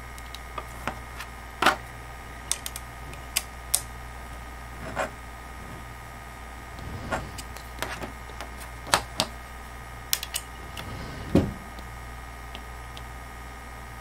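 Small Phillips screwdriver and pliers clicking and tapping against an acrylic case and its metal screws and standoffs as the screws are tightened, a dozen or so sharp clicks at uneven spacing.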